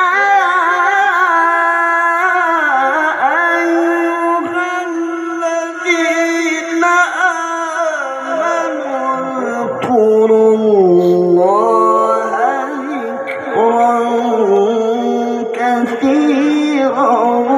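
A male qari reciting the Quran in the melodic tilawah style through a PA system: long drawn-out held notes with wavering ornamented turns, the pitch sinking lower about ten seconds in and then climbing again.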